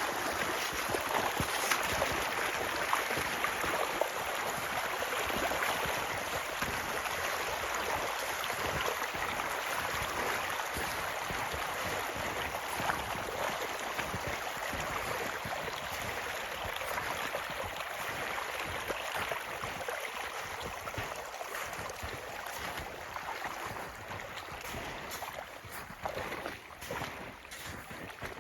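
Flood runoff from rain and snowmelt rushing steadily down a ditch channel, easing a little near the end.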